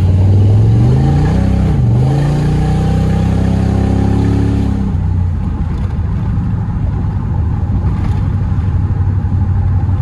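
LS V8 engine of a swapped Camaro Z28 accelerating: its pitch climbs, dips about two seconds in and climbs again. After about five seconds it settles into a steady low run.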